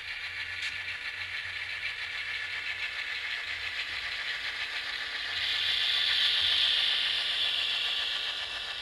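Model train running past: Chessie System model diesel locomotives and a gondola rolling along the track with a steady whirring rattle of motors and wheels. It grows louder about five seconds in as the train passes closest, then eases.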